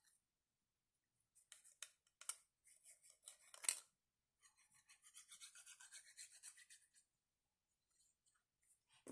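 Faint scratching of a fine-tip glue bottle's applicator scraping along a strip of paper as glue is laid down: a few separate scrapes, then a quick run of short strokes about five a second.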